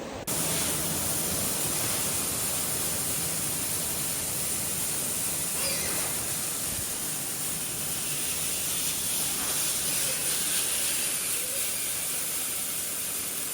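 Steady, even hiss of rushing air with a thin high whine on top. It starts abruptly and holds level throughout.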